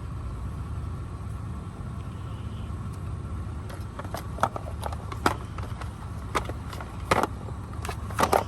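Steady low rumble of a vehicle on the move, with a run of sharp knocks and rattles starting about halfway through.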